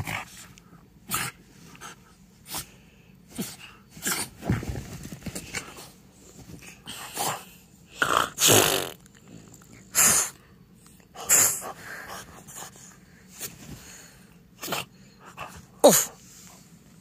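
French bulldog snorting and snuffling in short, irregular bursts, with a brief grunt near the end.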